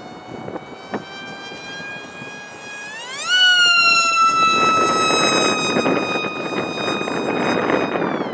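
Mini Rite Wing RC flying wing's motor and propeller whining high. The pitch climbs sharply about three seconds in as the throttle opens, then drifts slowly lower and drops away at the very end. Wind gusts on the microphone through the second half.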